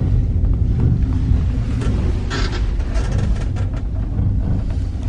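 Steady low rumble inside a small gondola cabin riding down the cable, with a short burst of rattling about two and a half seconds in as the cabin passes a support tower.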